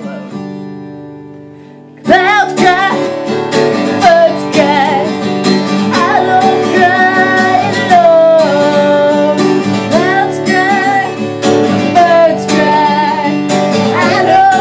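Acoustic guitar: a chord rings out and fades for about two seconds, then strumming starts again loudly. A wavering wordless vocal melody runs over the strumming.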